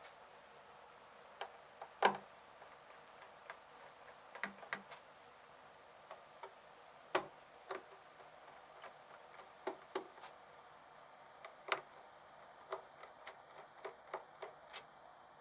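Irregular small clicks and taps from a screwdriver working the screws out of a laptop's bottom cover, some single and some in quick pairs, the loudest about two seconds in.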